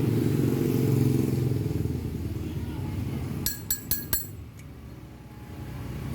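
Honda Verza's single-cylinder four-stroke engine running steadily, growing quieter about two seconds in. Four sharp metallic clinks follow in quick succession.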